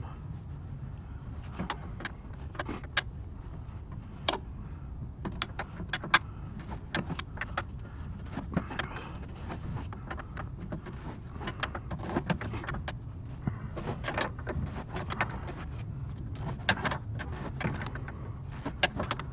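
Adjustable wrench clicking and clinking on a Freightliner Cascadia radiator drain plug as it is backed out in repeated half turns: irregular sharp clicks, sometimes several a second, over a steady low rumble.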